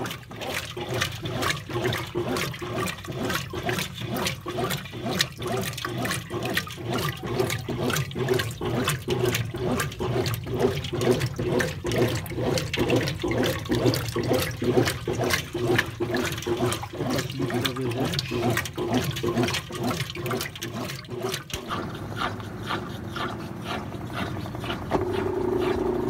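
Brastemp Clean BWC11 top-loading washing machine agitating during a rinse: water and clothes sloshing in a fast, rhythmic back-and-forth, as vigorous as turbo mode although turbo is off. Near the end the agitation stops and a steady motor hum starts as the machine moves on to the spin stage.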